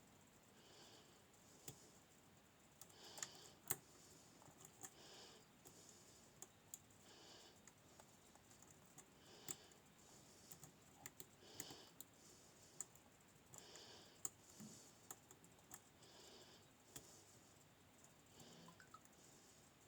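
Faint, irregular small clicks and scrapes of a lock pick and tension tool working the pins of a Nemef NF2 lock.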